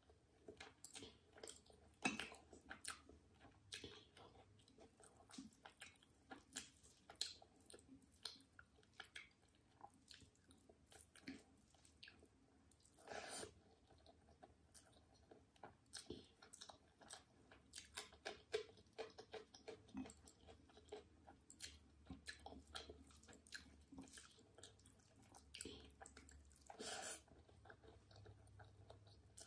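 Close-miked chewing of chicken curry and rice: a steady run of soft wet chews, lip smacks and small mouth clicks, with a few longer, louder sounds about halfway through and near the end.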